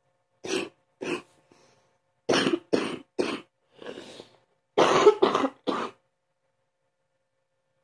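A person's deep morning cough: eight harsh coughs in three fits, two, then three, then three, with a breath heard between the second and third fit.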